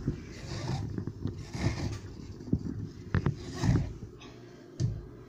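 A glass jar of chopped green garlic being handled and packed by hand on a wooden cutting board: rustling of the greens and several sharp knocks of the jar, loudest a little past the middle.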